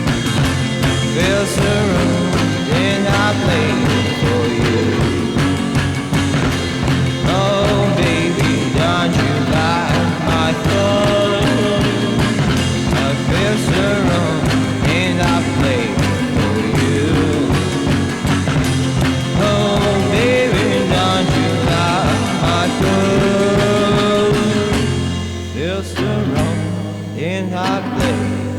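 Background rock music with singing and a steady drum beat; the drums drop out about 25 seconds in, leaving guitar and voice.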